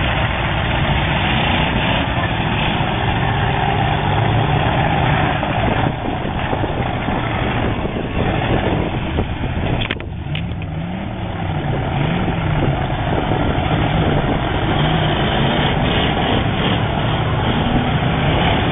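Demolition derby cars' engines running together, with revs rising and falling repeatedly from about halfway through, and a sharp click about ten seconds in.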